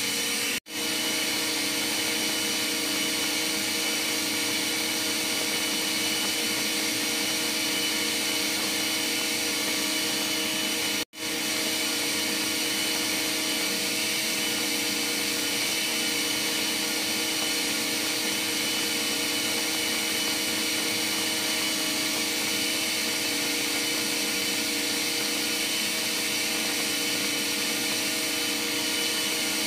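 Steady drone of ship engine-room machinery, a constant noise with several steady hum tones running through it. The sound cuts out for an instant twice, near a second in and about 11 seconds in.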